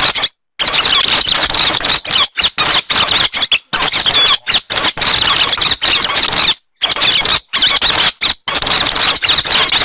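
Recorded call of the songbird known in Vietnamese as 'hec xoan', played as a lure for bird trapping: a loud, continuous rapid chattering of high squeaky notes. It breaks off briefly many times and cuts out completely twice.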